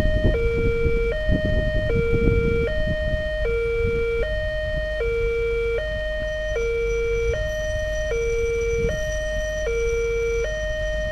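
Railway level-crossing warning alarm sounding with the barrier down: a steady two-tone high-low chime, alternating about every three-quarters of a second.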